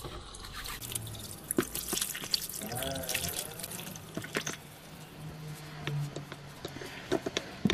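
Water running from a small faucet into a sink, splashing as hands are washed under it. A low steady hum comes in for a few seconds in the middle.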